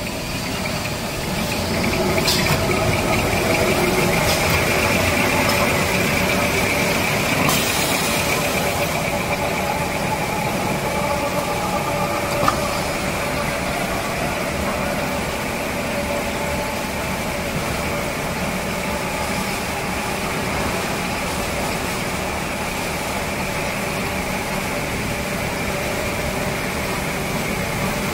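Maxi-roll tissue converting machinery running steadily: a constant machine hum with a high whine over it, and a few sharp clicks in the first half.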